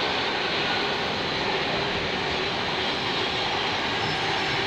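Container freight train rolling past at steady speed: a continuous, even noise of its wagons going by.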